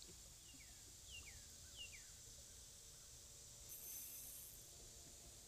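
Near silence with faint outdoor hiss. A few short, faint falling chirps come in the first two seconds, and a brief high hiss starts near the end.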